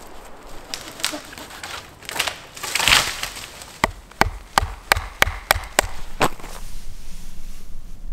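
A bushcraft knife is batoned down through a stick of wood on a stump: a run of about eight sharp wooden knocks, two or three a second, about halfway in. They come after a louder rasping crunch.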